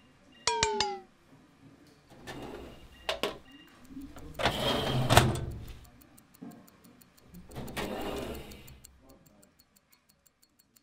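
A string of short sound effects: a brief falling tone, then sharp clicks and several swells of rushing noise, the loudest midway with a sharp click in it, and light, evenly spaced ticking near the end.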